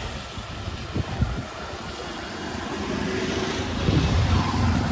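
Street traffic: a motor vehicle engine running close by, with a low rumble that swells louder near the end over a steady hiss, and a couple of light knocks about a second in.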